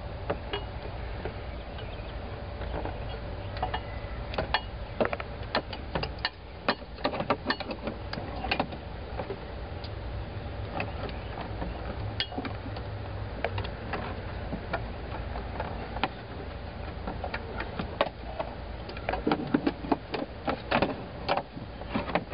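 Hand tools working on engine parts: scattered sharp metallic clicks and knocks, bunched in busy spells, over a steady low hum.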